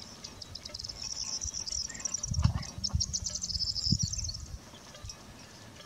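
Insects chirping in a fast, high-pitched pulsing trill, with a few dull low thumps in the middle.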